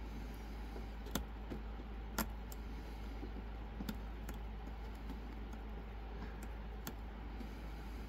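Lock pick and tension wire working the pins of a Cajun Lockpick Silver Bullet lock: a handful of scattered sharp clicks, the loudest about two seconds in, over a steady low hum.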